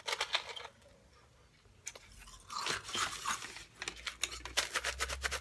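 Close-up crunching and chewing in the mouth: a short burst of crunches, a pause, then steady crunchy chewing through the rest.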